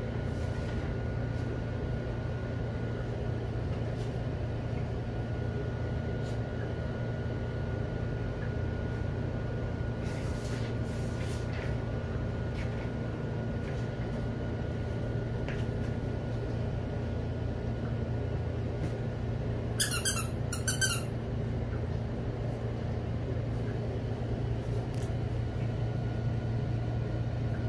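Steady machine hum in a small room with scattered light taps from puppies moving about on a concrete floor. Two short, high squeaks close together about twenty seconds in, the loudest sounds here.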